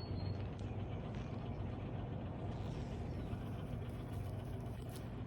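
A steady machine hum under an even rushing noise, constant throughout with no strokes or pauses.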